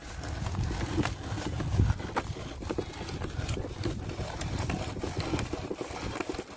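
Hand-cranked metal grain mill grinding toasted pumpkin seeds: a low, continuous grinding rumble with irregular clicks and knocks from the burrs and crank.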